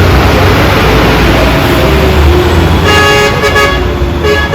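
Loud street traffic and road noise with a low rumble; about three seconds in, a vehicle horn starts sounding, held with a short break near the end.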